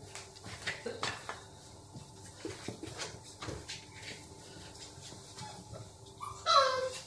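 A Barbet dog squirming inside a plastic pipe on a tiled floor: scattered light knocks and scrapes of claws and body against the plastic. Near the end comes a short high yelp that falls in pitch, the loudest sound here.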